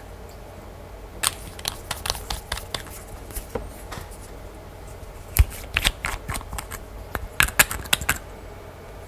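Glass nail-polish bottles and their brush caps handled close to the microphone: quick clicks and taps of the cap and brush against the glass, in three clusters, with one heavier knock a little past halfway.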